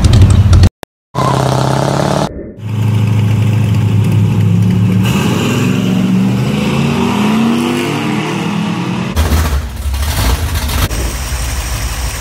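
Car engines heard in a run of cut clips. A loud engine rumble stops abruptly, then comes steady running and a long rise in pitch as a car accelerates. A rougher low rumble follows for the last few seconds.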